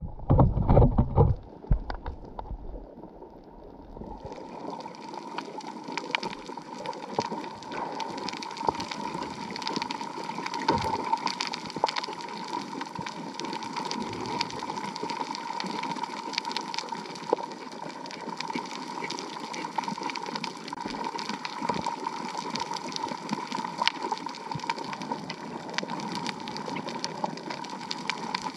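Underwater sound on a coral reef: a constant crackle of small clicks over a steady hum. Loud knocks from the camera being handled come in the first second or two.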